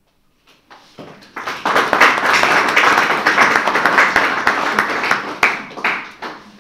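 Audience applauding: dense clapping that builds over the first second or so, holds steady, then dies away near the end.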